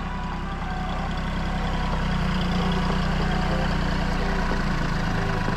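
Kohler 14-horsepower engine of a Woodland Mills HM126 bandsaw sawmill running steadily, slightly louder after the first couple of seconds.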